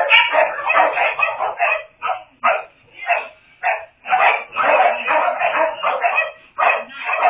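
Several kennel dogs barking rapidly and over one another at feeding time. The barking thins to a few separate barks about two to four seconds in, then picks up again.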